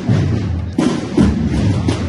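Procession band playing a slow march: low held notes with heavy drum beats struck a few times.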